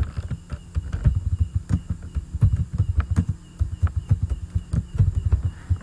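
Computer keyboard typing: an irregular run of key clacks, several a second, each with a dull low thump, over a low steady hum.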